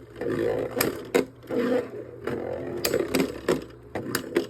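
Two 3D-printed Beyblade Burst tops spinning in a plastic stadium: a steady whir broken by sharp clicks at irregular intervals as the tops strike each other and the stadium wall.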